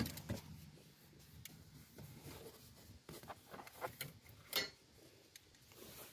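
Faint rubbing and scattered small clicks as hands handle seat belt wiring and plastic interior trim, with one louder click about four and a half seconds in.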